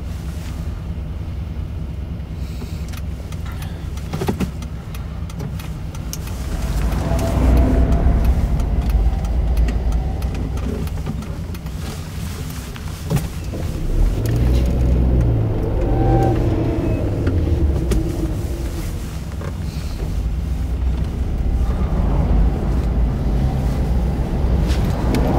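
Engine and road noise of a moving car heard from inside the cabin, a steady low rumble that swells louder twice, about six and fourteen seconds in.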